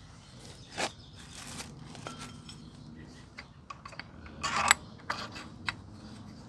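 Metal parts of a GY6 scooter's variator clicking and clinking as they are handled and fitted onto the crankshaft, with a louder rattle about four and a half seconds in.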